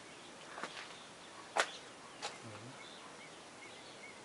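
A few sharp footsteps on a dirt and stone floor, the loudest about a second and a half in, with a small bird chirping faintly near the end.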